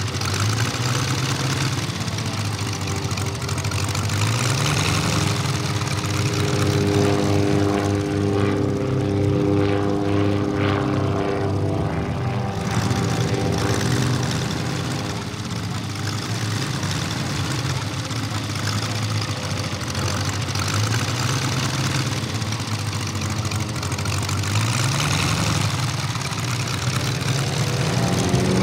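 Seven-cylinder 800 cc radial engine (VM R7-800) of a giant-scale RC Stearman PT-17 biplane in flight, with propeller noise. Its pitch rises and falls several times as the throttle changes through aerobatic manoeuvres.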